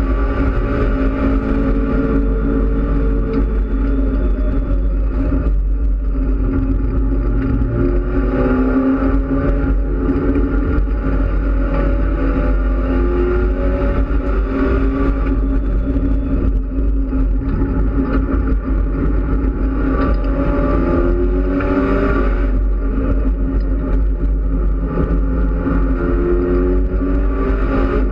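Mitsubishi Lancer Evolution X race car's turbocharged four-cylinder engine heard from inside the cockpit at racing speed, its pitch climbing and dropping back again and again as it accelerates and lifts around the track, over a heavy low rumble.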